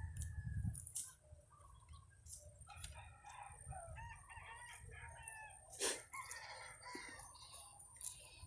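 Faint roosters crowing with other bird calls, and wind rumbling on the microphone in the first second. A single sharp click about six seconds in is the loudest sound.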